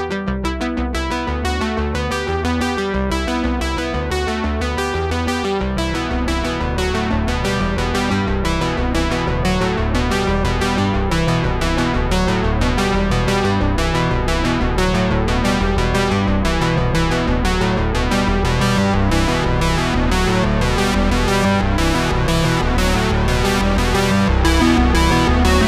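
Background music: a synthesizer and electric-piano track with a steady, even pulse and a bass line, with no other sounds audible over it.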